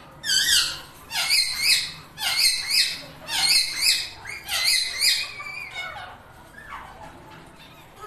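Newly hatched Indian ringneck parrot chicks begging: rapid bursts of high-pitched calls for about five seconds, then a few fainter calls near the end.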